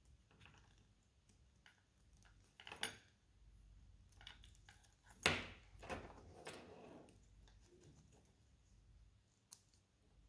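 Light metallic clicks and clinks of a swivel snap hook being handled on a leather strap end, with a sharper knock about five seconds in.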